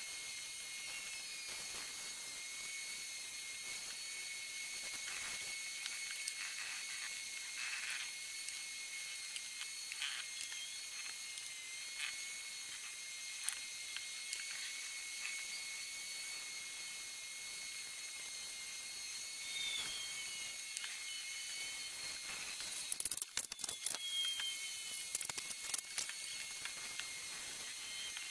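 Hand sanding of a primed truck roof panel with sandpaper: faint scratchy strokes, with a louder cluster of sharp scratches and clicks about 23 seconds in. Under it runs a steady high hiss with a thin ringing tone and a few short falling whistles.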